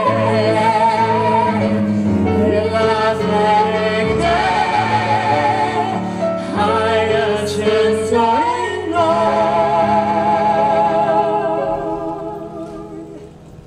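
Male operatic voice and female voice singing a duet with vibrato over electric keyboard accompaniment, closing on a long held note that dies away near the end.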